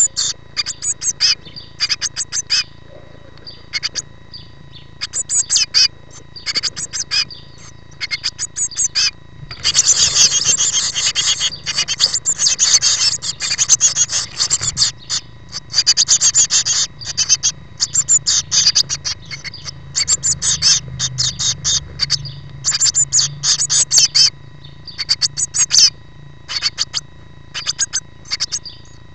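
Blue tit nestlings, nearly fledged, calling in the nest box with short, high-pitched cheeps repeated over and over. About ten seconds in they break into a loud, continuous begging chorus with gaping mouths for several seconds, then drop back to scattered cheeps.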